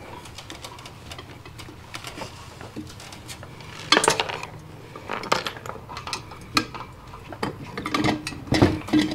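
Metal clinks, clicks and knocks from an assembled Hunter ceiling fan as it is lifted and fitted onto its ceiling mounting bracket. The sharpest knock comes about four seconds in, with more near the end.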